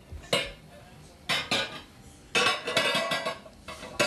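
A baby banging and rattling a brown cookware pot and its lid: a clank, two more a second later, a rapid flurry of clattering in the middle, and another clank near the end.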